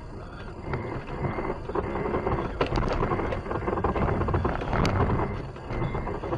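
Car running slowly on a snow-covered road, heard from inside the cabin: a low engine and tyre rumble that grows louder around the middle, with a few sharp clicks.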